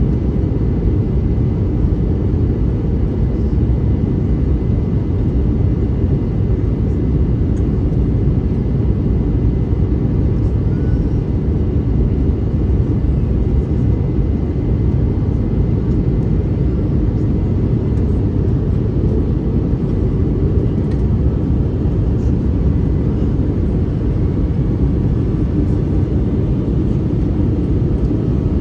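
Steady roar of an Airbus A321neo's engines and airflow heard inside the passenger cabin, deep and even throughout, with a faint steady high tone above it.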